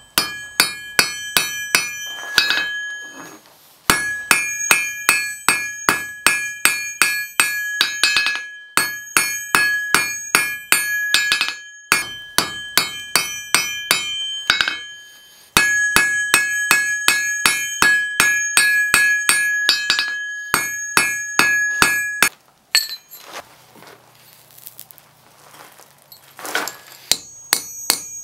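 Hand hammer striking red-hot Damascus steel on an anvil, ringing blows about three a second in several runs, while forging a jew's harp frame. The blows stop for a few seconds near the end, then start again.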